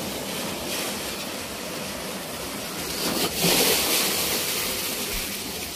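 Water rushing and splashing as a tube raft comes off a water slide into the shallow runout lane, with a louder surge of splashing a little past halfway.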